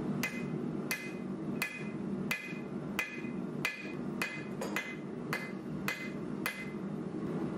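Hammer blows on red-hot metal held in pliers on an anvil, about eleven evenly paced strikes at roughly three every two seconds, each with a short metallic ring. A steady low hum runs underneath.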